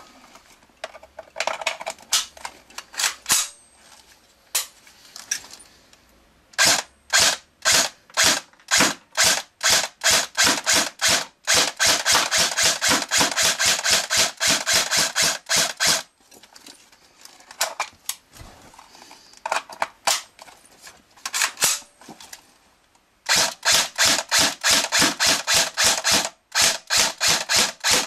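Real Sword SVD Dragunov electric airsoft rifle firing, its battery-driven gearbox cycling with a sharp snap per shot. First come single shots with gaps between them, then long rapid strings of shots in quick succession.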